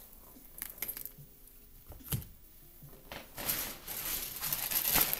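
A few light clicks and a knock, then a bag being handled and crinkled from about three seconds in, the rustling growing louder.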